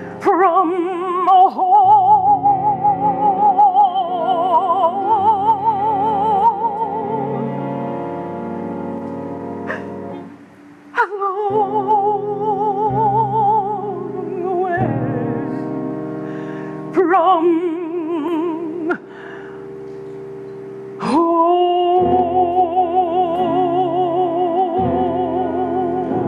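A female vocalist sings a slow spiritual in long notes with wide vibrato over piano accompaniment. About 21 seconds in she swoops up sharply into a long held note.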